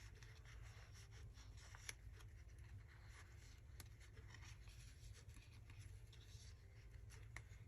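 Near silence with faint paper handling on a craft table: light rustling and a few small taps, the clearest about two and four seconds in, over a low steady hum.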